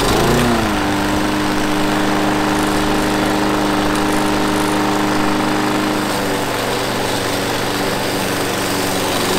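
Briggs & Stratton single-cylinder engine on a lawnmower running steadily. Its pitch swings and settles in the first second, then drops slightly about six seconds in.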